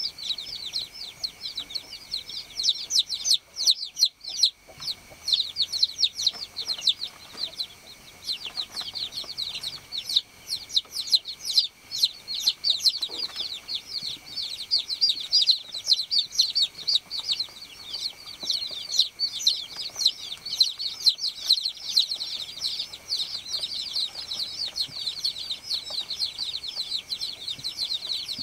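A group of baby chicks peeping continuously: many high-pitched chirps overlap in a rapid, unbroken chatter, with a brief lull about four seconds in.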